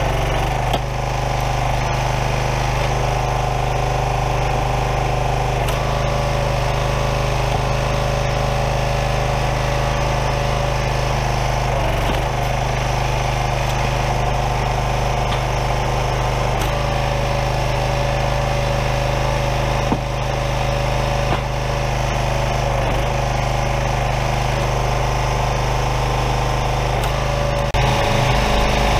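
Small gas engine of a Craftsman 27-ton log splitter running steadily while its hydraulic ram splits a large firewood round, with a few sharp cracks along the way.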